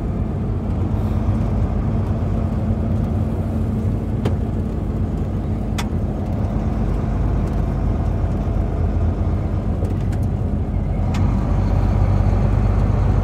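Semi-truck engine and road noise heard from inside the cab while driving slowly: a steady low hum, with two faint clicks in the middle and a slight rise in level near the end.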